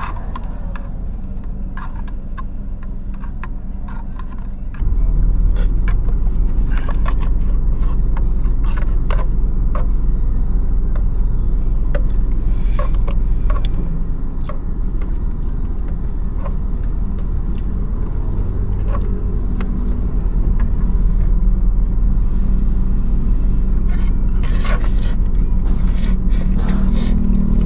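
Steady low rumble of an idling car engine heard inside the cabin, stepping up in level about five seconds in. Over it, short clicks and scrapes of a fork in a paper cup of instant noodles as it is stirred and eaten from.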